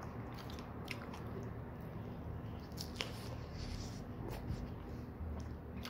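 Biting into and chewing fresh strawberries: a few short, sharp clicks and smacks scattered through the chewing, over a low steady hum.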